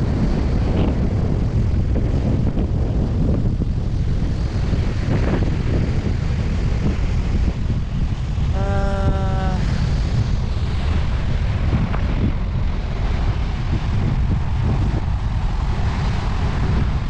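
Strong wind buffeting the microphone, with surf breaking on the beach underneath. A brief steady pitched tone sounds once about halfway through.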